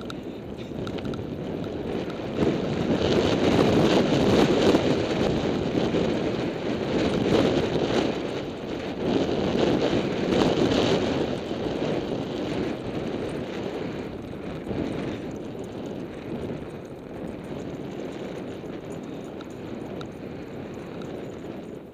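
Wind rushing over the microphone of a camera on a moving bicycle, mixed with road noise from the bike. It grows louder a couple of seconds in and eases off over the second half, with a few faint knocks and rattles.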